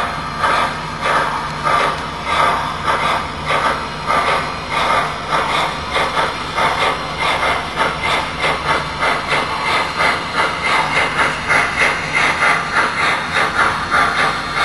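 MTH HO-scale model steam locomotive's Proto-Sound 3.0 onboard sound system playing steady steam chuffs as the locomotive runs. The chuffs quicken slightly toward the end, over a steady low hum.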